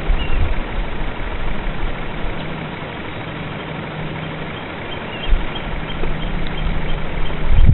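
Wind buffeting the action camera's microphone: an uneven low rumble and hiss, easing a little midway, with a faint steady low hum under it.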